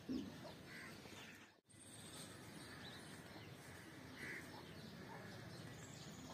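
Faint outdoor background hiss with scattered bird chirps and calls, one slightly louder call right at the start. The sound cuts out completely for a moment about one and a half seconds in.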